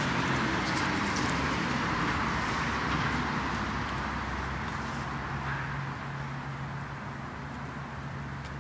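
Road traffic noise: a vehicle's running noise that slowly fades away, with a low steady hum coming in about halfway through.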